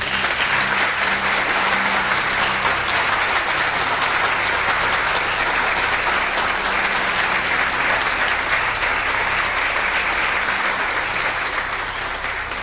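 Studio audience applause, a dense steady clapping that starts abruptly and fades out near the end.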